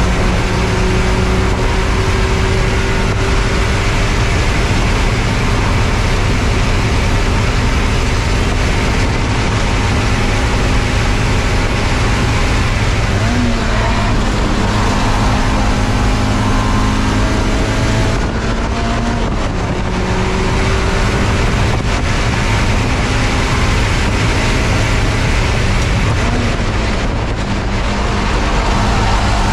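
Spec Miata race car's four-cylinder engine running hard on track, heard from inside the car over loud wind and road noise. The engine note holds mostly steady and drops briefly about 18 seconds in and again near the end.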